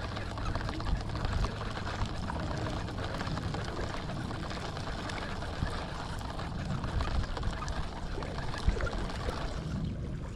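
Steady rushing noise of wind on the microphone, heavy in the low rumble, with water at the lake's edge.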